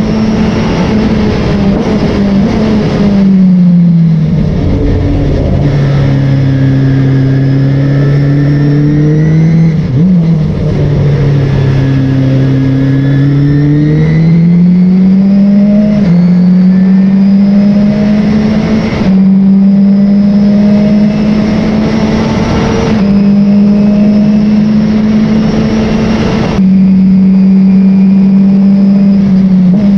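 Race car engine heard from on board, running hard on track. Its pitch holds high, falls about three seconds in and stays low through the middle with a brief blip, then climbs back up and holds, with a few abrupt steps.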